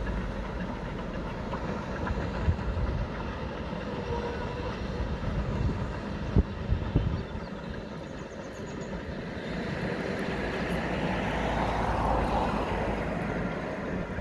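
Double-headed steam train, two locomotives hauling passenger coaches, heard from across a valley as a steady low rumble. A few sharp knocks come about six to seven seconds in, and a hiss swells and fades near the end.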